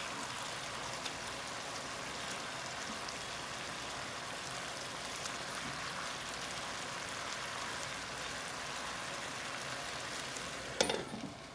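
Chicken pieces sizzling in hot oil in a pan, a steady crackling hiss as the moisture cooks off. A sharp clatter comes near the end, after which the sizzle is quieter.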